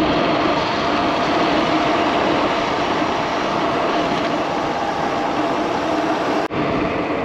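Steady rushing wind and road noise from a touring bicycle moving fast downhill, with a faint steady tyre hum underneath. It breaks off for an instant about six and a half seconds in.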